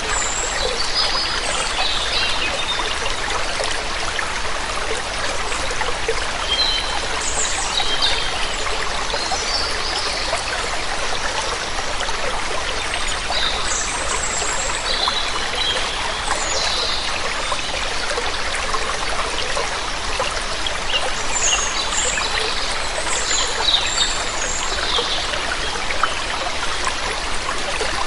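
Waterfall water running in a steady rush, with small birds calling in short high chirps in several scattered bursts.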